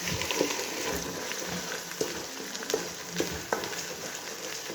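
Food sizzling as it fries on the stove, a steady hiss broken by a few light knocks and clicks.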